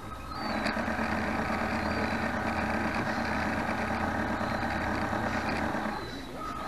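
Small electric motor aboard a model boat running steadily at one speed, switched on just after the start and cut off sharply near the end.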